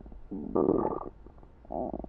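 A hungry person's stomach growling: gurgling rumbles in two bursts. The louder burst comes about half a second in, and another starts near the end.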